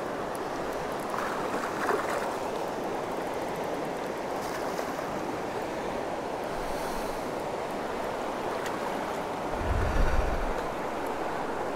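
Steady rush of stream water pouring over a rocky riffle and shoals, with a brief low rumble near the end.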